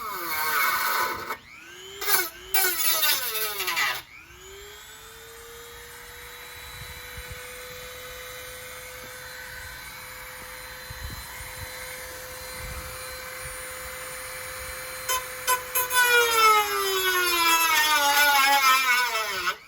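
Small high-speed power cutting tool whining in short spells in which its pitch drops and recovers, then running steadily for about ten seconds, then bogging down again in louder spells near the end as it cuts into the car's sheet metal.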